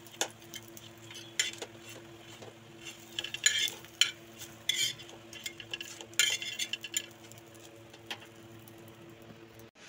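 Metal spatula scraping and clinking on a hot iron tawa as fried pointed-gourd fritters are lifted off, in irregular strokes, with a faint sizzle of oil underneath.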